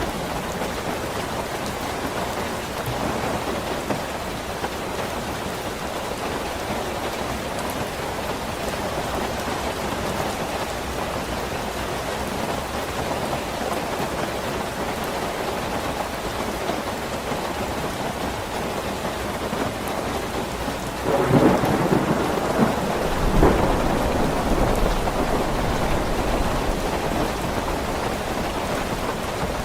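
Steady rain falling, with a sudden clap of thunder about two-thirds of the way through that rumbles on for several seconds.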